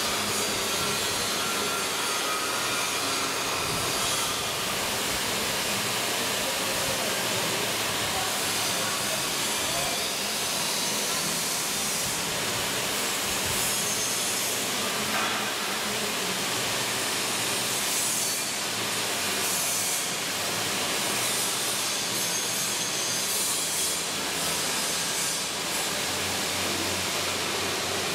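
Steady, loud hiss that changes little throughout, with a faint low hum beneath it.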